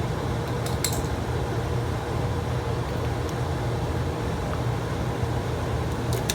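Furnace blower motor running steadily with a constant hum and rush of air, working properly again on a newly replaced capacitor.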